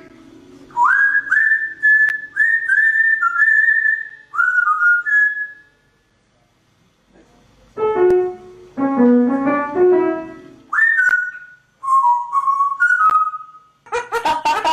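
A pet parrot whistling a tune: a series of clear whistled notes, each sliding up into a held pitch, in two phrases. Between the phrases comes a short run of piano-like notes.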